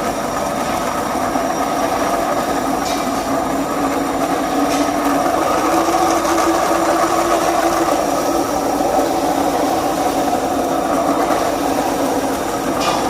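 A small electric motor, such as a kitchen appliance's, running steadily with a continuous hum and whirr.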